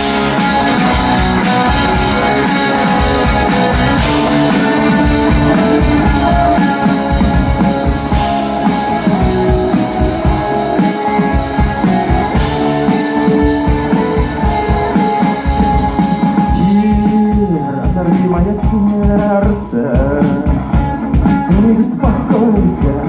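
Rock-style song intro: electric guitar over a steady drum beat, with a voice coming in near the end.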